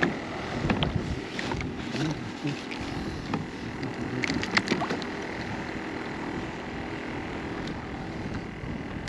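Water lapping and splashing against a plastic kayak hull, with wind on the microphone and scattered light clicks and knocks as a caught fish and gear are handled in the boat, most of them about halfway through.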